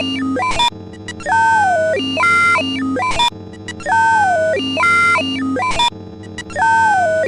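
A synthesized electronic sound effect looping over and over, about once every two and a half seconds. Each pass has a tone that slides down, then a pair of higher held tones with short clicks between.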